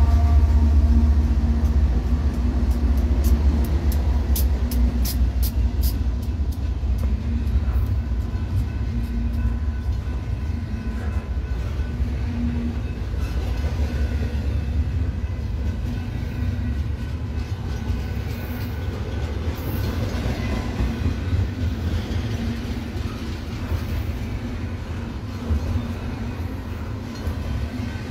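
Freight train rolling past close by: the rear of the lead diesel locomotives goes by first, then a long string of double-stack container cars with a steady rumble of wheels on the rails. It is loudest in the first couple of seconds and eases a little as the cars follow.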